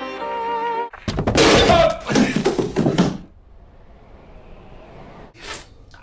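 Slow violin music cut off abruptly about a second in, followed by about two seconds of loud banging and crashing, then a low hiss with one short burst of noise near the end.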